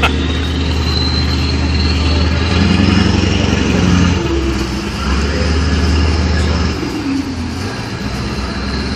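Boat diesel engine running with a low, steady drone, its note changing a couple of times, over the noise of wind and water.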